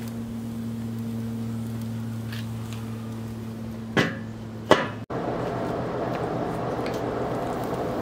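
Enamelled steel lid of a Weber kettle grill set down on the bowl: two metal clanks less than a second apart, over a steady low hum. Shortly after, the background changes to an even hiss.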